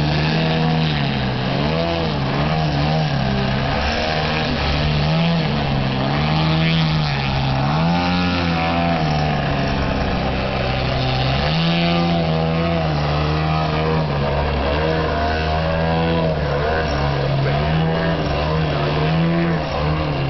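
Radio-controlled model airplane's engine running in flight, its pitch rising and falling over and over as it flies aerobatic stunts.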